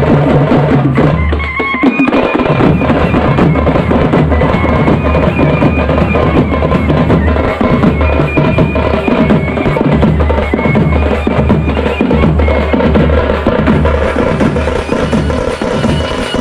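Loud music with dense, steady drumming and a high held melody line over it.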